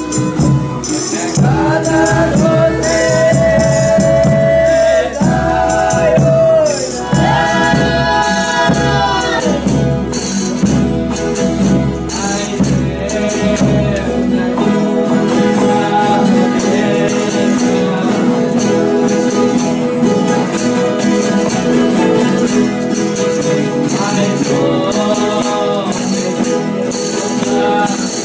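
Folia de Reis ensemble performing: voices singing long held lines over strummed guitars, a violin and steady tambourine jingles. About halfway the deep bass drops away.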